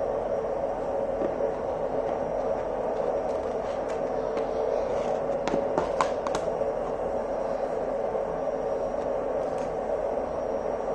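Steady background hum, with a few light clicks around the middle.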